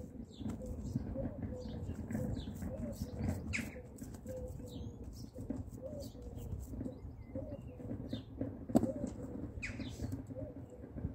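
Birds calling: a pigeon cooing over and over with short low calls, and small birds chirping now and then, over a steady low rumble. A single sharp knock about nine seconds in.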